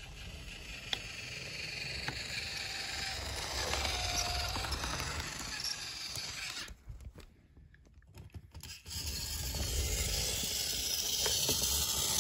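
Battery-powered toy train engine running on plastic track, its motor and gears whirring and its wheels rattling over the track joints, growing louder as it approaches near the end. The sound drops out almost completely for about two seconds in the middle.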